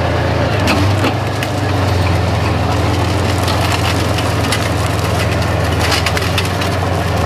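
T-55 tank's V12 diesel engine idling as a steady low drone, with irregular crackling throughout.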